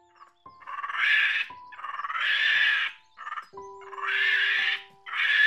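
Four harsh, breathy monkey calls, each lasting about half a second to a second, the second one the longest, over background music of soft held notes.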